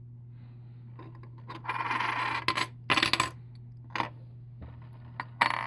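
One-ounce .999 silver bullion coins clinking and sliding against one another on a wooden table as a hand spreads a stack out: a longer jingle about one and a half seconds in, then several short separate clinks.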